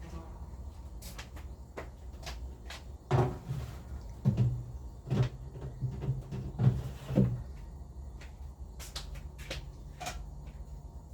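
A run of about six knocks and bumps of household items being handled or shut, starting about three seconds in, amid lighter clicks and clatter.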